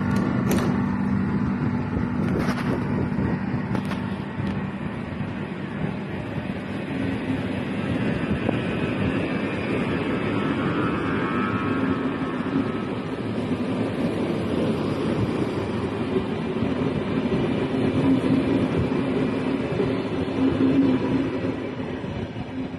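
Combined passenger and InterCity train pulling out of a station and running past, with a steady heavy rolling rumble and a few sharp clacks in the first four seconds.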